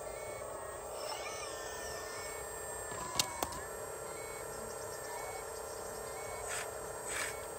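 Scale RC Hitachi excavator's hydraulic pump whining steadily as the boom swings, with two sharp clicks a little after three seconds in and short bursts of hiss near the end.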